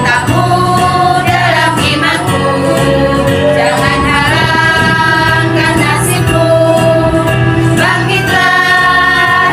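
Women's choir singing together in long held notes, over a steady low instrumental accompaniment.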